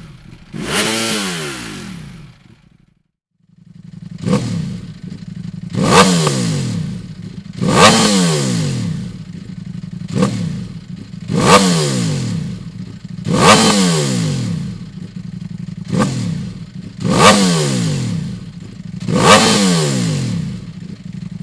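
Ducati Panigale V4S's V4 engine, fitted with a Dominator exhaust and decat, being blipped repeatedly at standstill: about ten sharp throttle blips, each dropping back to a steady idle, roughly every two seconds. A brief break comes about three seconds in.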